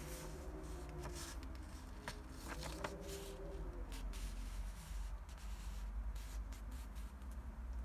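Faint rustling and ticking of a paper receipt being held and moved by hand, over a steady low hum.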